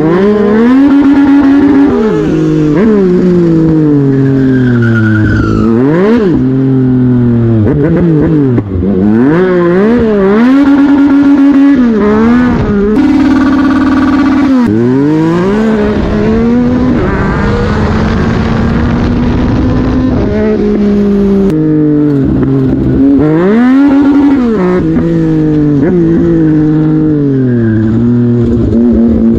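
2021 Yamaha MT-09's 890 cc inline three-cylinder engine under hard riding. It revs up through the gears again and again, its pitch climbing and then dropping back at each shift or roll-off, with stretches of steadier running in between.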